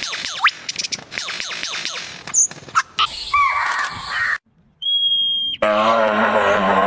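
A quick run of short chirps for about three seconds, then abrupt cuts to different sounds: a brief pitched call, a short steady whistle-like tone, and finally a long wavering pitched call.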